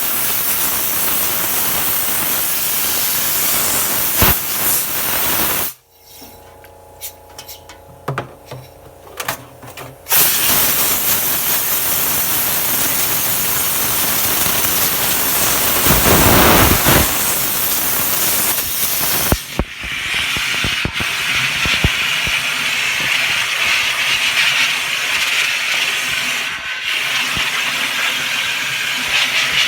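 Water spraying with a steady loud hiss. It stops for about four seconds near the start, with a few small clicks, then sprays again.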